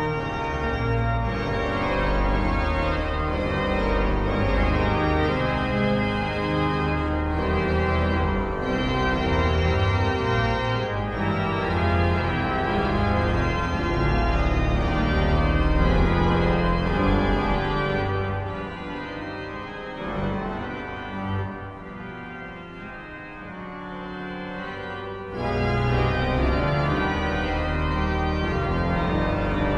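Organ music: sustained chords over a deep bass, dropping to a softer passage about two-thirds of the way through, then returning to full strength.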